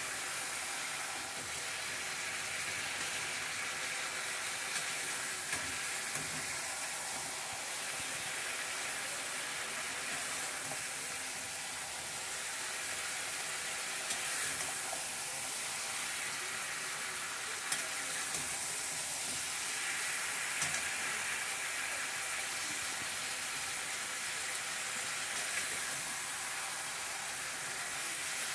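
Chopped potato and capsicum sizzling in an aluminium kadhai as they are stir-fried with a metal spatula, a steady hiss with a few light clicks scattered through it.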